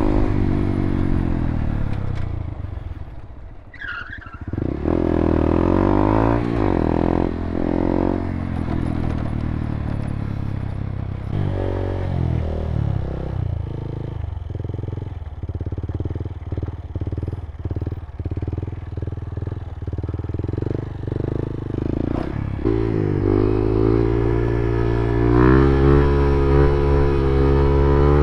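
Motorcycle engine under way, heard from the rider's own bike: it eases off and dips about four seconds in, then pulls up again, runs with uneven throttle pulses through the middle, and revs up twice near the end.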